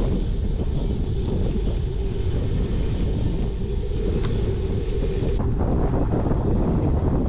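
Wind rushing over an action camera's microphone on a moving bicycle, a steady low rumble, with a change in tone about five seconds in.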